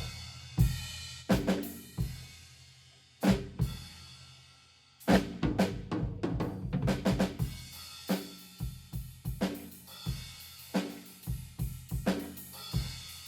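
Drum kit played with sticks, with Nuosheng low-volume quiet cymbals. A few separate crashes ring out over the first seconds, then from about five seconds in a steady beat of drums and cymbals.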